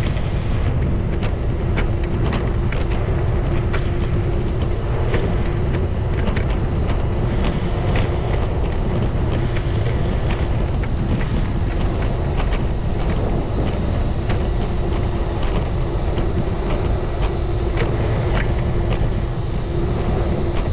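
Hi-Boy scooter's small engine running steadily while riding, with wind buffeting the microphone and scattered light ticks.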